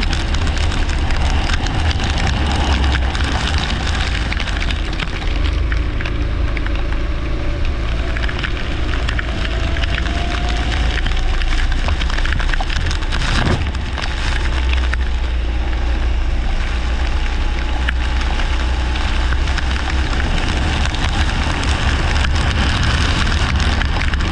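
Leisure (rental) karts racing on a wet track: engine noise under a heavy low rumble and constant crackling. A faint rising engine tone can be heard about nine to twelve seconds in.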